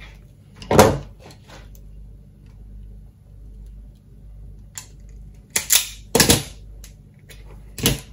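Hand tools knocking on a wooden worktop and the snap of a pair of automatic wire strippers stripping the end of a thin cable: a handful of sharp clicks and knocks, the loudest about a second in and a close cluster around six seconds.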